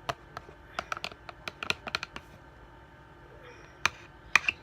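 A wet, non-stretchy slime mixture of conditioner and face scrub being worked in a plastic container, giving irregular sharp sticky clicks and taps. The clicks come in a cluster about a second in, and a few louder ones come near the end.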